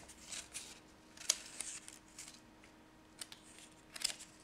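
Pages of a small paper user-manual booklet being turned by hand: a few brief paper rustles and flicks, the sharpest about a second in and another near the end.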